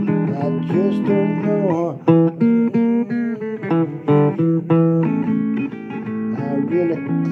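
Blues guitar playing an instrumental passage of picked notes and chords, several of the notes bent in pitch.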